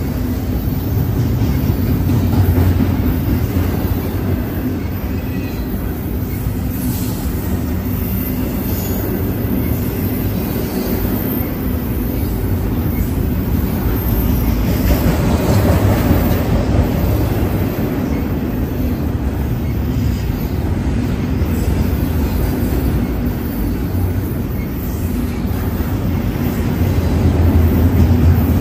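BNSF double-stack intermodal freight train rolling past close by: a steady rumble and rattle of steel wheels on rail as the loaded well cars go by. It swells a little louder near the end.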